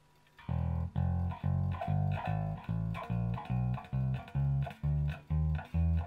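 1970 Fender Jazz Bass, plugged in, plucked one note at a time in an even run of about two and a half notes a second, starting about half a second in. The notes are a fret-by-fret final check, after a refret and fret levelling, that no note chokes or buzzes out on any fret.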